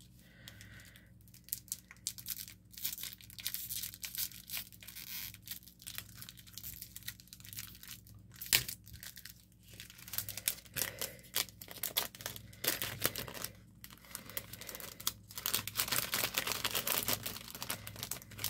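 Packaging being torn and crinkled open by hand to free an item. Irregular crackles and rustles grow busier toward the end.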